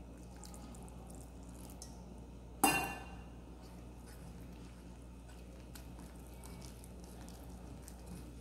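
Wire whisk stirring thick flour-and-water batter in a glass bowl, with faint squelching and light ticks. A single sharp clink against the glass bowl, ringing briefly, comes about two and a half seconds in.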